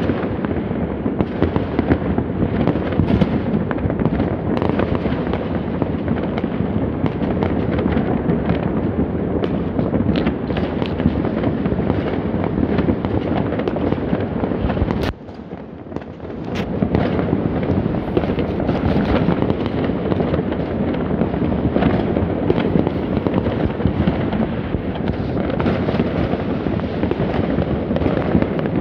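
Many fireworks and firecrackers going off all around at once: a dense, continuous run of pops and bangs merging into a steady din. It dips briefly about halfway through, then picks up again.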